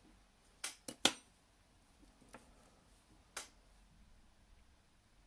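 Small hard clicks and taps of a metal dental modelling tool and a miniature being handled against a plastic tray and tabletop: three quick clicks about a second in, then two more spaced out.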